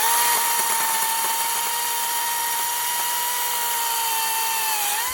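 Makita brushless 18-inch battery chainsaw, which speeds up quickly at the start and then runs steadily at full speed with a high, even whine. Its pitch sags slightly near the end.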